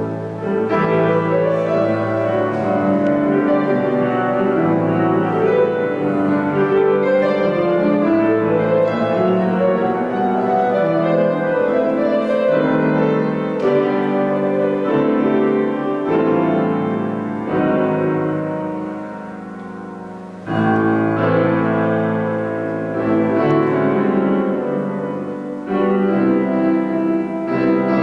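Grand piano playing a slow, continuous piece in a large stone church. The notes die away about two-thirds of the way through, then the playing starts again abruptly.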